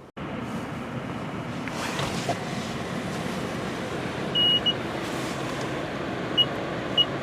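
Steady noise of a car running, with short high electronic beeps at uneven intervals starting about four seconds in.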